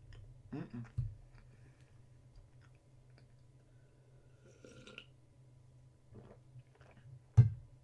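Quiet eating sounds: chewing and mouth clicks while he drinks from a plastic cup, with a short hum about half a second in. A sharp knock near the end is the loudest sound.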